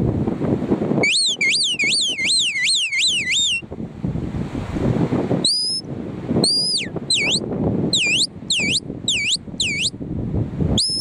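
Shepherd whistling commands to a working sheepdog. A run of quick warbling trills comes first, then after a pause a short rising note, a long falling note, a string of short dipping notes and a final held note near the end, over steady wind rumble on the microphone.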